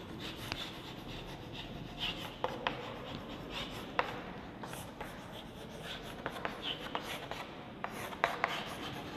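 Chalk writing on a chalkboard: short scratching strokes and taps of the chalk, coming irregularly as words are written.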